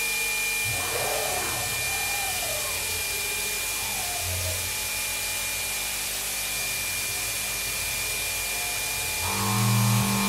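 Milling machine spindle running with a steady hiss of air blast from the coolant nozzle, while the CNC axis drives feed the indexable shear-hog cutter slowly down toward the aluminium stock. Faint motor sounds glide up and down in pitch early on, and about nine seconds in a louder steady hum comes in as the feed override is turned up.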